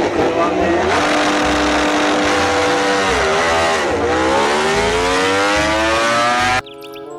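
Sound effect of a racing motorcycle engine revving. It holds a steady note, dips briefly about three and a half seconds in, then climbs steadily in pitch and cuts off suddenly near the end.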